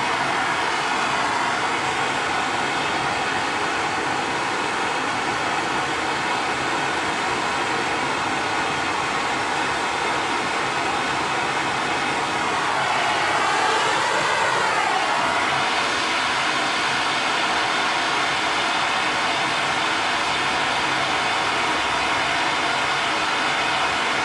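Handheld gas torch burning with a steady rushing hiss, heating a seized tie rod end to free it. About halfway through, the sound sweeps briefly up and back down as the flame shifts.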